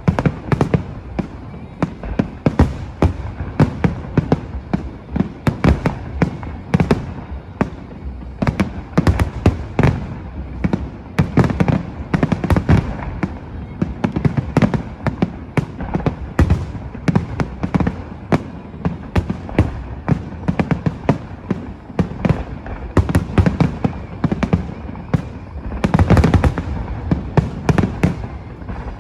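Fireworks display: aerial shells bursting in quick, unbroken succession, many sharp bangs and crackles with a dense flurry near the end.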